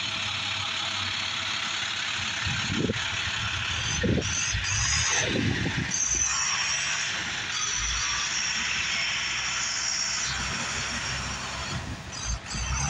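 International DT466 7.6-litre turbo-diesel six-cylinder truck engine idling steadily, with a continuous hiss over a low rumble.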